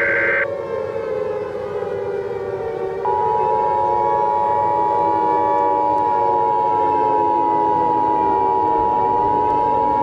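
Civil defense siren wailing, its pitch slowly wavering. A burst of high data tones cuts off just after the start, and about three seconds in the steady two-tone Emergency Alert System attention signal comes in over the siren.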